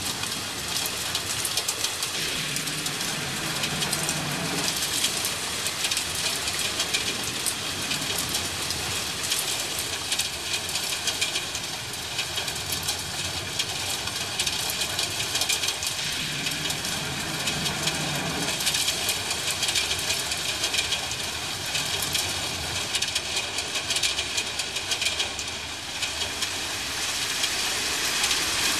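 Steady heavy rain pattering, with two low rumbles of distant thunder, one about three seconds in and another about sixteen seconds in.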